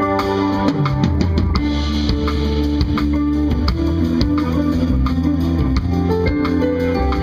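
Jazz-fusion band playing live: electric guitar over electric bass, keyboards and drum kit.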